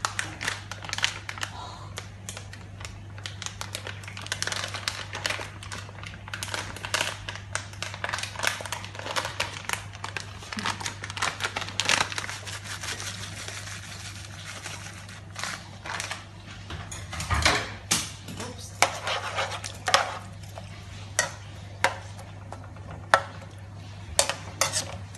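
A spatula scraping and knocking against a metal frying pan while stirring egg and seafood, a dense run of small scrapes that turns into sharper, separate knocks in the second half. A steady low hum sits underneath.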